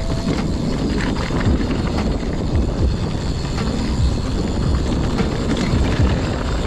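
Mountain bike ridden fast along a rough dirt trail: a steady rumble of tyres and wind on the microphone, broken by frequent low thumps as the bike hits bumps.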